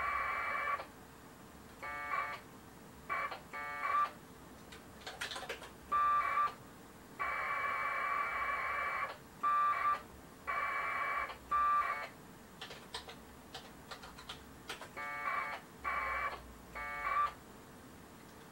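Packet radio (AX.25) data bursts: a harsh warbling two-tone modem signal, about a dozen bursts, most under a second and one about two seconds long, as packets pass back and forth over the radio link. Between bursts, a few quick keyboard clicks.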